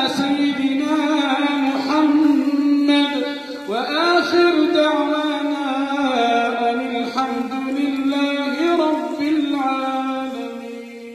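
A man's solo voice chanting one long melismatic phrase of an Arabic supplication, holding sustained notes with ornamented turns and a rising swoop about four seconds in. It is the drawn-out closing blessing on the Prophet that ends the prayer, fading out near the end.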